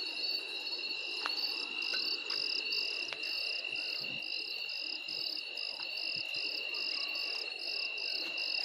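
Night insects, crickets among them, calling steadily with several at once: a continuous high trill under a pulsing chirp that repeats over and over. A few faint clicks are heard.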